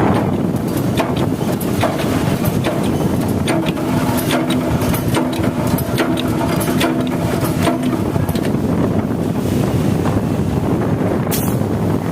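A manhole cover machine running steadily, with a low hum under constant noise and frequent short clicks and rattles.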